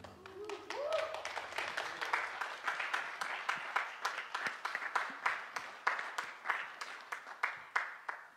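Audience applauding after the song ends, with a short vocal whoop about half a second in; the clapping stops abruptly near the end.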